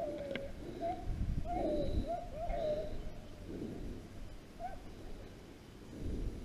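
A pack of beagles baying on a rabbit's trail: a string of bending, overlapping bays, the hounds giving voice as they run the scent.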